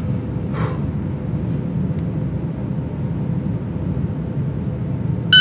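Steady low rumble of an indoor shooting range's ventilation system. Right at the end a shot timer's start beep begins.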